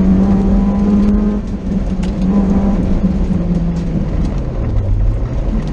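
BMW E30 rally car's engine heard from inside the cabin, running hard at a steady pitch, then dropping to a lower note about four seconds in as the revs fall. A few sharp knocks come through from the road.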